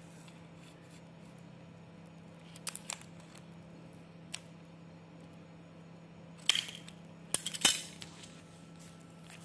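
Scissors snipping through a plastic drinking straw: a few light clicks, then louder sharp snips about six and a half and seven and a half seconds in.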